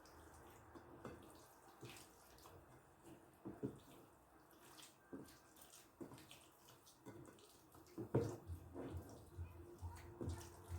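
Zucchini being grated on a coarse grater: faint, wet scraping strokes, scattered at first, then coming steadily about three a second from about eight seconds in.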